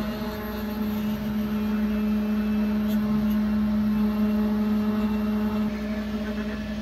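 CNC router spindle running at a steady high-pitched whine while its end mill carves lettering into a wooden blank.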